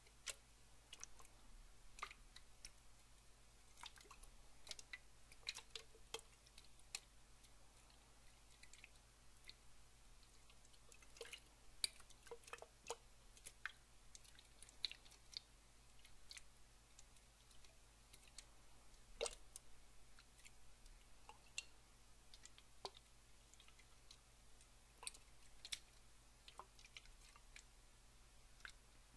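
Faint, irregular wet clicks and small drips of water, close to the microphone, with no steady flow.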